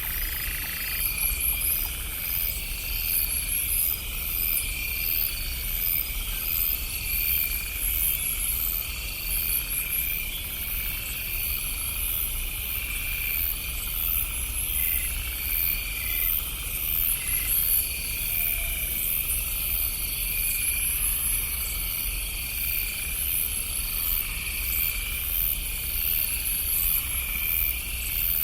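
Night chorus of insects and frogs: steady high trilling with chirps repeating about once a second, over a low steady rumble. A lower frog call stops about a second in.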